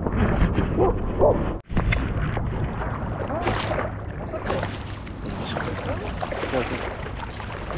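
Steady outdoor wind and sea-water noise on the microphone, with faint voices. The sound drops out for a moment about one and a half seconds in.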